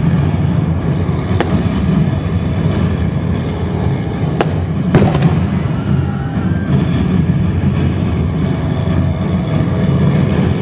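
Sound effects of an air raid with fireworks: a dense, continuous low rumble, broken by three sharp bangs, one about a second and a half in and two close together around four and a half to five seconds in.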